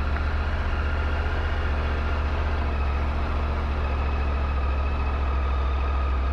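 Triumph Tiger 900 GT's three-cylinder engine idling steadily, a constant low hum.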